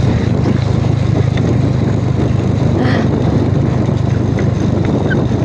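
Motorcycle engine of a tricycle running at a steady pace while riding, heard from on board.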